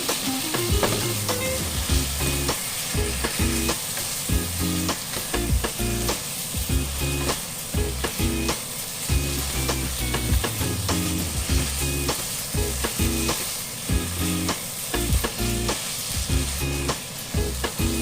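Sliced lamb leg frying and sizzling in a pan as it is stirred, the utensil clicking against the pan again and again.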